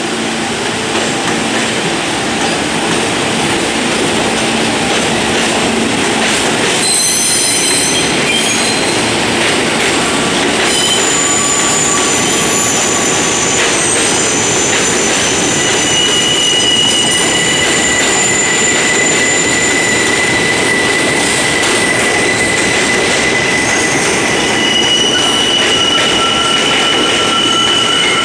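New York City Subway train rolling past on elevated track with a steady, loud rumble of wheels on rails. From about seven seconds in, the wheels squeal on the curve in several high, held tones that come and go.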